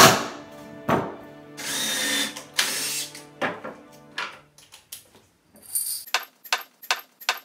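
Cordless driver running in two short bursts about two and three seconds in, driving screws into the wooden shelf top, over plucked-string background music.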